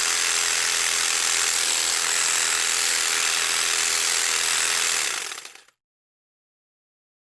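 Electric jigsaw running with a steady, loud sawing noise that fades out about five seconds in, followed by silence.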